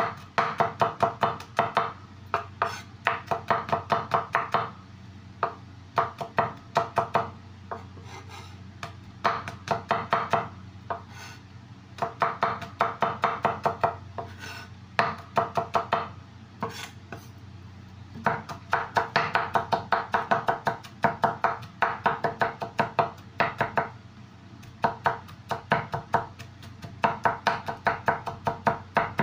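Kitchen knife chopping garlic cloves on a wooden cutting board: quick runs of knocks, about five a second, broken by short pauses.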